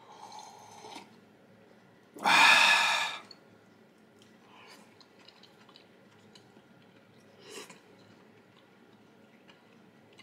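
A person eating: quiet chewing with small clicks, and one loud breathy sound lasting about a second, about two seconds in.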